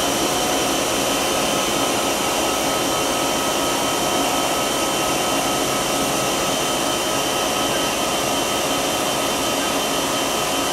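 Haas VF-4 vertical machining center's spindle running at a steady 4,000 RPM, a constant whine made of several held tones over a hiss. The spindle is relatively new, about 800 hours, and not yet warmed up.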